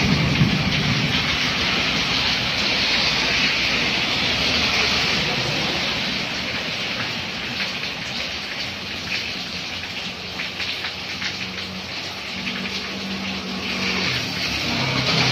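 Steady rain falling on a wet street. A car's tyres swish through standing water at the start, and a motorcycle engine passes near the end.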